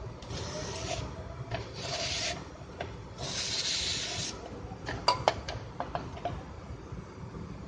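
Three short rubbing strokes, then a quick cluster of sharp clicks about five seconds in.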